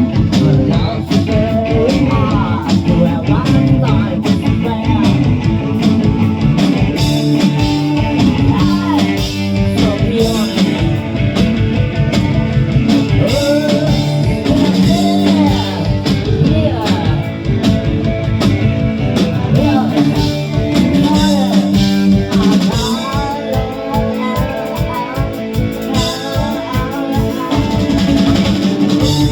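Live rock band playing a song: drum kit and electric guitars, with a singer's voice over them.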